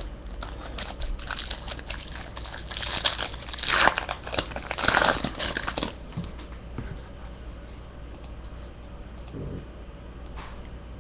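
A trading-card pack's wrapper being torn open and crinkled by hand, a dense rustle and crackle that is loudest a few seconds in and dies down about six seconds in, leaving only a few faint clicks as the cards are handled.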